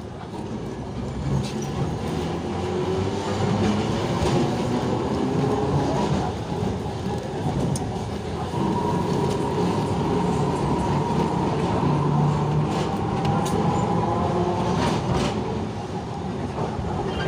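Egyptian street tram running, heard from on board: a steady rumble of wheels on rails and motor. About halfway through a wavering high tone rises over it, and a few sharp clicks come near the end.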